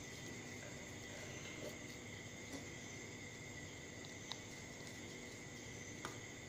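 Faint screwdriver work: a couple of small clicks as a screw is tightened through a power transistor into an aluminium heatsink, over a steady thin high-pitched whine and background hiss.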